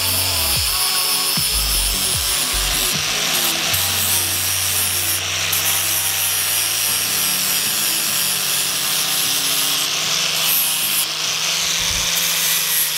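Angle grinder with a flap disc grinding a steel hinge plate clamped in a vise, running steadily, with music playing underneath.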